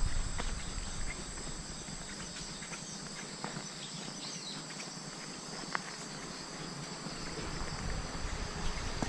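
Insects chirring steadily in the surrounding trees, with scattered light crunches of footsteps on a leaf-strewn dirt path. Wind rumbles on the microphone near the start and again toward the end.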